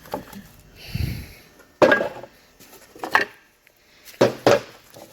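Metal transmission oil pans clanking and knocking as they are handled and set down on a table, with a low thump about a second in and four or five sharp clanks after it.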